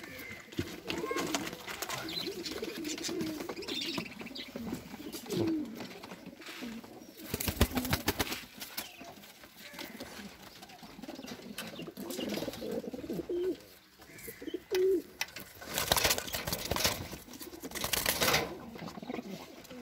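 Pigeons cooing, with loud bursts of wing flapping about midway and again near the end.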